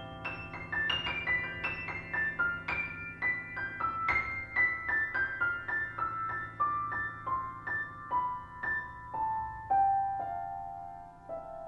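Solo piano playing a slow, quiet melody of single notes, about two or three a second at first, that steps downward, slows, and comes to rest on a held note near the end. A faint steady low drone lies underneath.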